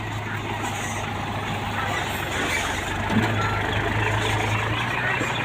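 Heavy diesel engine of the site machinery running steadily under load, with a brief knock about three seconds in.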